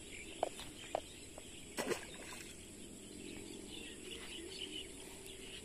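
Outdoor ambience with birds chirping and calling over a steady low background hiss. A few short clicks come in the first two seconds, the sharpest just before the two-second mark.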